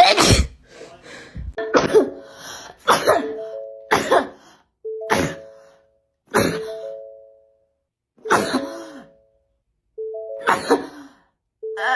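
A rapid run of about nine sharp sneezes, roughly one every second or so, with a longer gap near the middle. Most of them come with a short chord of steady tones.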